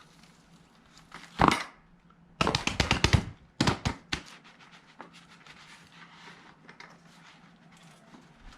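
A bucket of garden soil and potatoes being tipped out onto the ground: a knock about a second and a half in, then two bursts of rattling, rushing noise as the dirt pours out, after which it goes quiet.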